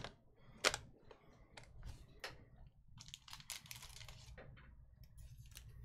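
Faint, irregular clicking and tapping of typing on a computer keyboard, with one sharper click about a second in.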